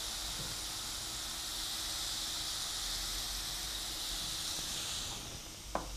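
Ground spice masala sizzling in oil in a kadai while it is sautéed, a steady high hiss that dies down about five seconds in. A single light tap comes just before the end.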